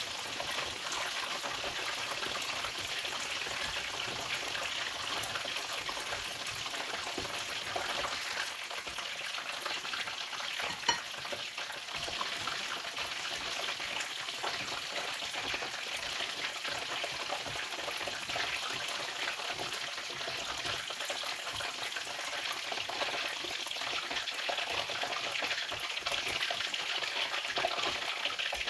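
Food deep-frying in hot oil: a steady, dense crackling sizzle that holds throughout, with one sharp click about a third of the way in.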